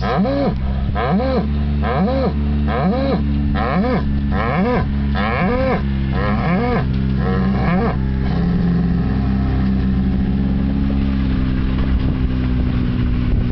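An animal calling over and over in short moaning calls that rise and fall in pitch, about one and a half a second, likened to a moose; the calls stop about eight seconds in. A steady low hum runs underneath.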